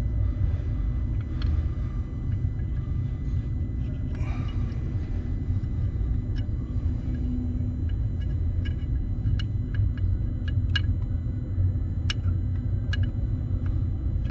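Skid steer's diesel engine running at a steady idle, a low rumble, with about ten sharp, irregularly spaced clicks over the last eight seconds.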